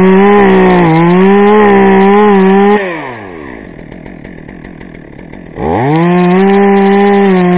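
Two-stroke chainsaw running at full throttle; about three seconds in the throttle is released and the engine falls to idle, then it revs back up to full speed about two and a half seconds later.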